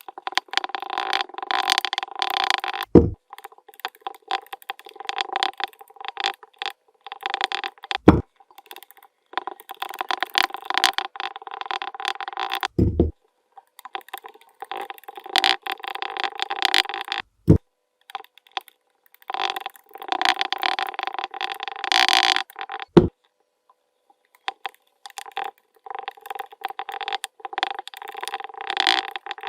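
Kinetic sand crackling and crumbling as it is worked, in stretches of a few seconds with short pauses between, and a dull low thud about every five seconds.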